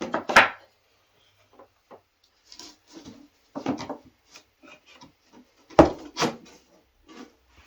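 Handling of wood strips and small hardware: a string of sharp knocks and clicks, the loudest about half a second in and twice around six seconds in, with softer rubbing sounds between.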